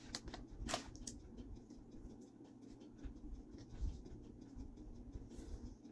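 Hands handling a muffin and its paper wrapper: faint scratchy rustling, with a few light clicks in the first second.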